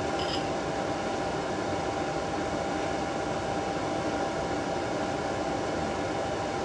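Steady background hum and hiss of room noise with a constant faint tone, like a running fan or air conditioner. A couple of faint spoon clinks against the ceramic cereal bowl right at the start.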